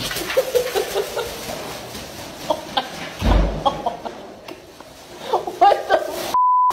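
A person laughing in short clucking chuckles, most strongly about a second before the end. A steady beep tone then cuts in and blanks out all other sound.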